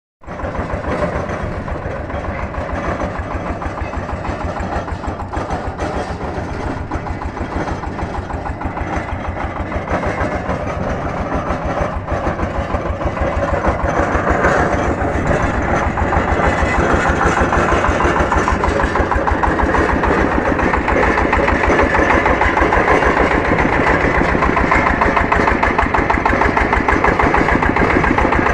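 Engine powering a water-well boring rig, running with a fast even beat, growing louder and harsher from about halfway while the cable winch is worked.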